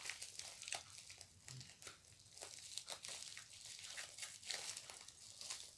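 Faint crinkling and rustling of plastic packaging being handled and cut open with scissors, in scattered small crackles and clicks.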